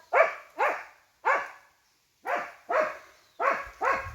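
Bhotiya dog barking at langurs: a run of about eight loud, sharp barks, each dropping in pitch, with a short pause after the first three.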